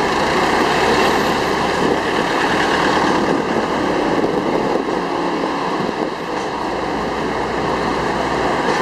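Jeepney on the move in town traffic, heard from aboard: a steady mix of engine noise and road noise.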